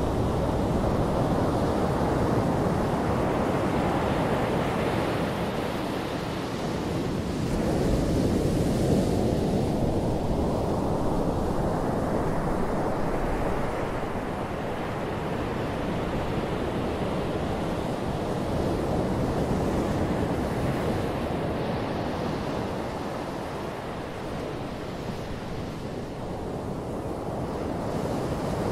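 Small surf breaking and washing up a flat sandy beach: a steady rush of water that slowly swells and eases as the waves come in.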